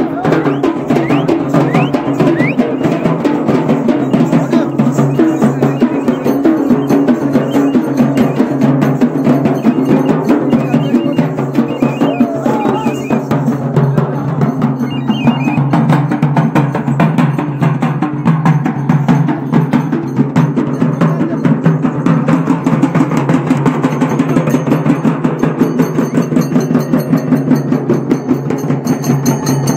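Several large double-headed barrel drums (dolu) beaten fast and without pause by a folk drum troupe, a dense, driving rhythm of sharp strokes.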